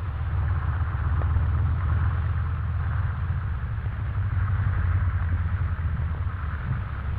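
Propeller aircraft engines running on an airfield: a steady low drone with a hiss over it.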